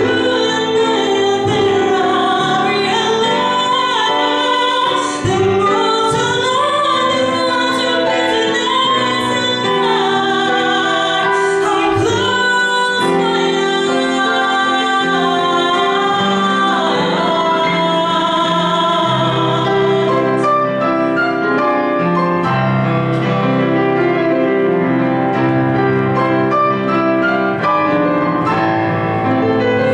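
A woman singing a slow song with live digital-piano accompaniment, her voice amplified through a microphone.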